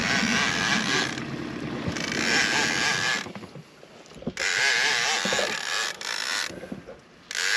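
Fishing reel cranked in four bursts of about a second each, with short pauses between, as line is won back from a hooked catfish (wels) during the fight.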